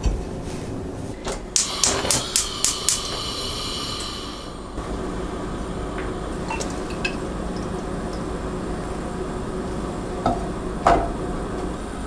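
Kitchen and tableware handling: a ceramic plate set down with a knock at the start, a quick run of about six light clinks, then two soft knocks near the end as bread slices are laid into a frying pan.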